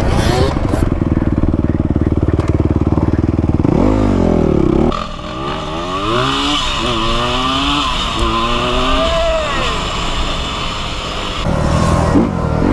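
Dirt bike engine under way, holding steady revs at first. From about five seconds in its pitch rises and falls again and again as the bike is revved and shifted, then it settles back into a steady drone near the end.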